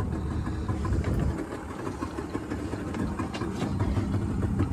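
A small fishing boat's outboard motor idling, a steady low rumble, with a few faint clicks and knocks over it.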